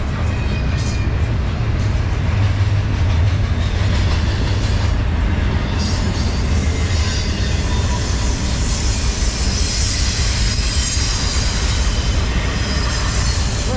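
Norfolk Southern double-stack intermodal freight cars rolling past at close range: a steady, loud rumble of steel wheels on rail, with a high hiss growing louder in the middle.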